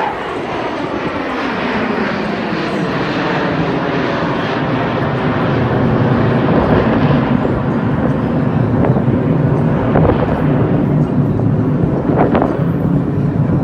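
Jet aircraft flying past, its engine noise swelling over the first couple of seconds and then staying loud.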